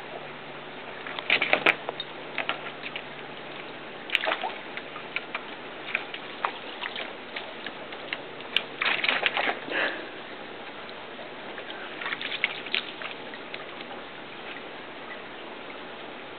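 Corgi splashing water in a plastic kiddie pool, in short clusters of splashes several times over a steady background hiss.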